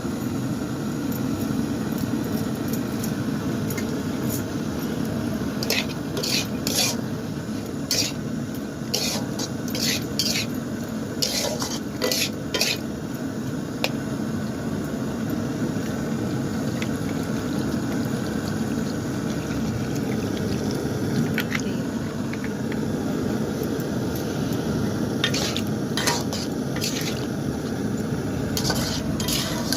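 A metal spoon stirring and scraping in a cooking pan, with clusters of sharp clicks against the pan about six seconds in and again near the end, over a steady low noise.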